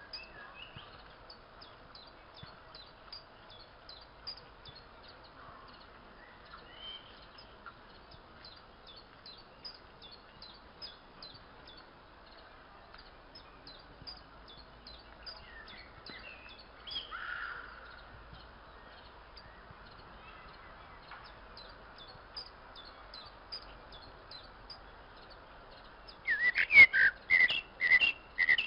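Open-air ambience: a bird chirping over and over in short high notes above a faint steady hiss, with a few louder calls partway through. Near the end comes a quick run of loud sharp knocks mixed with short high tones.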